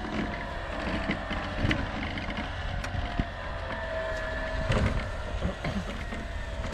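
Rusted 1927 Ford Model T body shell dragged over snow on a tow line, making a steady scraping noise with scattered knocks and rattles from the loose metal body.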